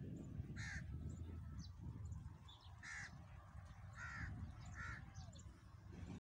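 Short bird calls repeated four times over a low, steady rumble; the sound drops out for a moment near the end.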